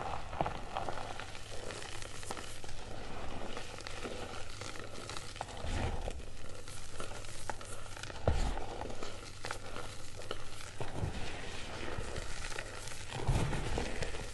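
Hands crumbling and squeezing lumps of reformed gym chalk into loose chalk powder: a crunchy, crackly crumbling with powder sifting down, and a few dull thumps about six, eight and thirteen seconds in.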